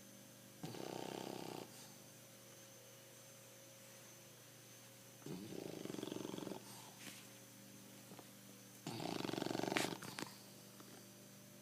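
A bulldog snoring: three snores, each about a second long, some four seconds apart, the last the loudest.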